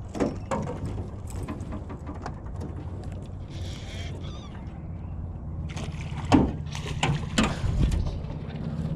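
Knocks and thumps on an aluminium fishing boat's hull as a hooked pike is fought to the boat and the landing net is brought out, over a steady low hum. The loudest knocks come in a cluster a little past the middle.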